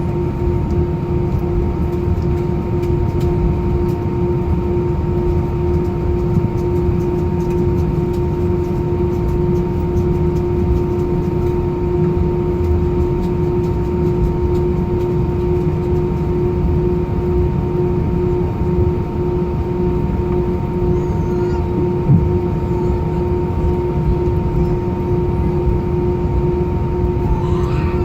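Cabin noise of an Airbus A319: a steady whine from its engines at low power over a low rumble, holding the same pitch throughout, with a single brief knock about two-thirds of the way through.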